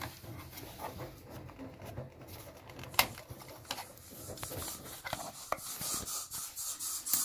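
Handling noise of a phone and a small UV curing lamp being set up on a table: light rubbing and scattered small clicks and taps, with one sharper click about three seconds in and quicker taps near the end.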